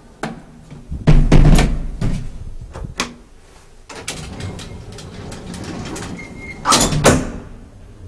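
Elevator doors being worked, with loud clattering thuds about a second in and again near the end, and sharp clicks in between.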